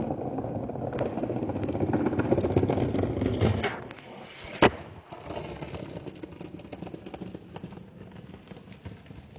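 Skateboard wheels rolling over rough paving stones, the rumble building for a few seconds and then dropping away as the board leaves the ground. One sharp crack of the board landing comes about four and a half seconds in, followed by quieter rolling.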